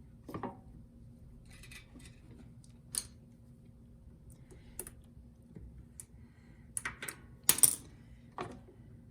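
Scattered small clicks and light metallic clinks of hands and tools working on a small engine's carburetor and fuel line, with the loudest knock about seven and a half seconds in.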